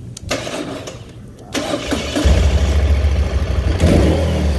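Moto Guzzi Stelvio 1200 8V's air-cooled V-twin being started: the starter cranks it for a couple of seconds, then it fires and settles into a steady idle, slightly louder near the end.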